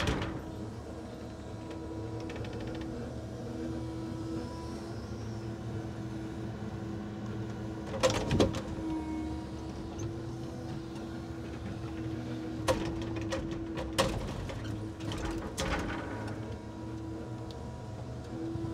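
Timber truck's hydraulic loader crane at work: a steady drone of the engine and hydraulic pump, with several loud wooden clunks as the grapple handles and sets down heavy log mats, the first about eight seconds in and more in a cluster a few seconds later.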